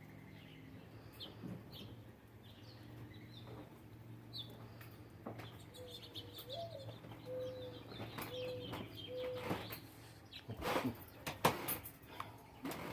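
Small birds chirping at a feeder while a dove coos a slow series of low notes, the second note rising above the rest. Near the end comes a loud burst of wing flapping.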